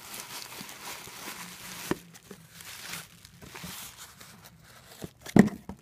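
Rustling and crinkling of packing paper and plastic wrap being pulled out of a cardboard box, with a sharp knock near the end.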